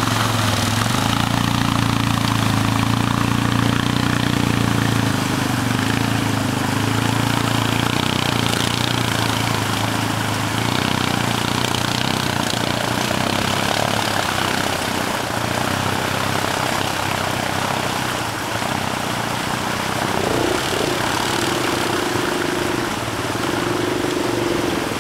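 Quad bike (ATV) engines running as the machines ride through water, with splashing and wash over it. A steady engine note is strongest for the first few seconds, then fades under the hiss of water. A higher engine note comes in near the end.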